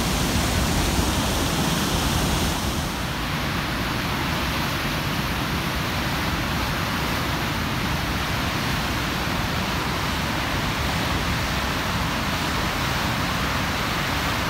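Blackstone River pouring over the Manville Dam's spillway into churning whitewater below: a steady, loud rush of falling water, a little duller after about three seconds.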